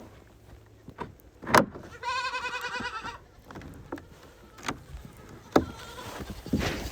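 A baby goat bleats once for about a second, a wavering, quavering call, about two seconds in. Several sharp knocks or clicks come before and after it.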